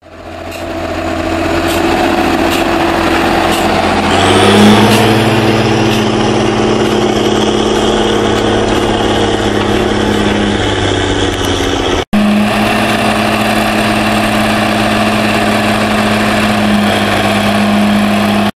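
Zetor 16145 tractor's six-cylinder diesel engine running steadily while pulling a Pöttinger Jumbo 7200 loader wagon. The engine rises in pitch about four seconds in and then holds steady, with a momentary break near twelve seconds.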